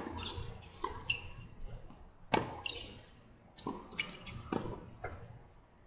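Tennis ball struck by rackets and bouncing on a hard court during a doubles rally. A sharp hit comes at the very start and another loud one a little over two seconds in, with lighter pops and bounces between them.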